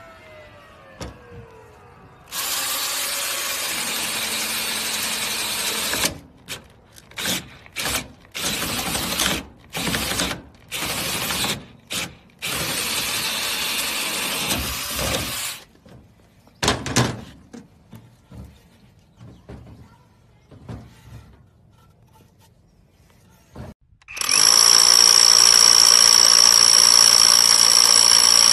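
Cordless drill boring into a wooden board with a nail-strike wood-boring bit: a steady run of a few seconds, then a string of short bursts as the trigger is pulsed. About 24 s in, a drill with a four-flute bit starts boring into wood and runs steadily with a high whine.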